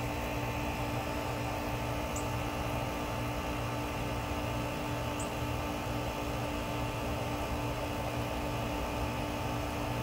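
Bryant heat pump outdoor unit running with a steady hum and a constant whining tone. A few short, faint high chirps come about two and five seconds in.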